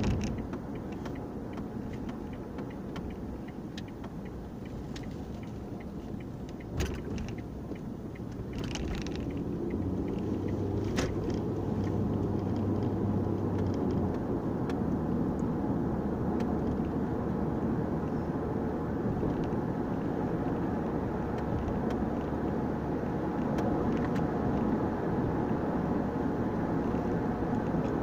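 Road noise inside a moving car's cabin: a steady rumble of tyres and engine that grows louder about ten seconds in, with a low engine drone for a few seconds after the rise. A couple of faint clicks.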